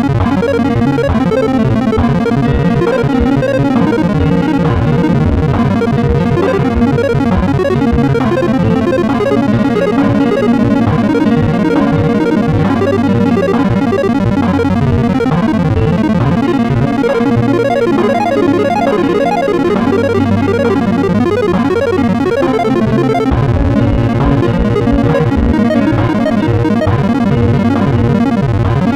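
Instrumental music: a Kramer Focus VT-211S electric guitar through delay, distortion and reverb pedals, playing a dense, layered passage of held notes that blur together in the effects.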